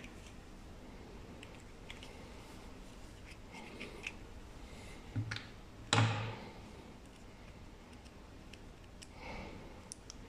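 Small plastic clicks and scrapes as a screwdriver tip pries at a Toyota key fob's battery holder. Two sharper snaps come a little past the middle, and the second is the loudest.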